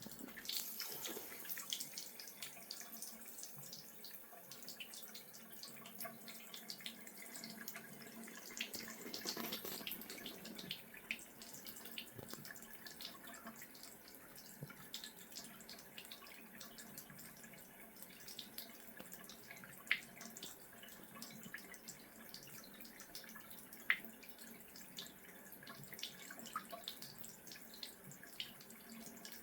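A cat lapping water with faint dripping and trickling, heard as many small irregular ticks and splashes. Two sharper clicks come about twenty and twenty-four seconds in.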